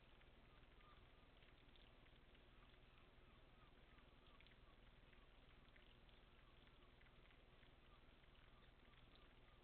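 Near silence: faint, steady patter of light rain, many small scattered drop ticks over a soft hiss.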